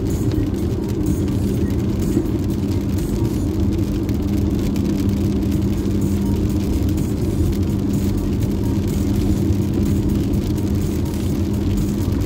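Steady road noise of a car heard from inside the cabin while driving: a low rumble of tyres and engine with a constant hum.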